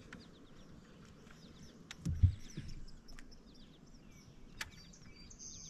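Quiet open-air lake ambience with faint bird chirps throughout and a single low thump about two seconds in.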